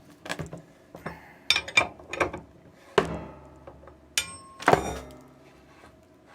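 A 1.25-inch wrench being fitted to and worked on a plug in a cast pump housing: a series of metal clinks and knocks, a few ringing briefly, the loudest about three and about four and a half seconds in.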